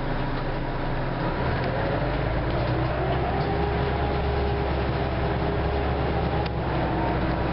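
Diesel engine of a TTC Orion V city bus, heard from inside the cabin, pulling away and picking up speed. Its low drone grows louder about a second and a half in, and a faint whine rises in pitch above it.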